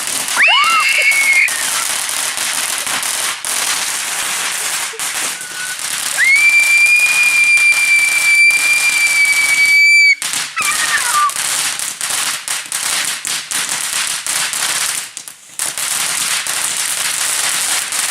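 Fireworks going off: dense crackling throughout, a rising whistle at the start, then a long steady high whistle for about four seconds that cuts off suddenly, followed by a short falling whistle.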